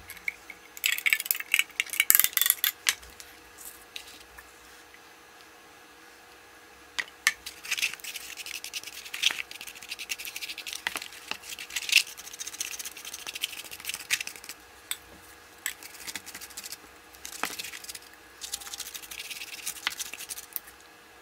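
A paintbrush working Varathane sealer into the rough, hardened sawdust-and-glue lining of a homemade hat block: intermittent scratchy brushing strokes with light clicks and clinks. There is a louder burst of rustling and clinking about a second in.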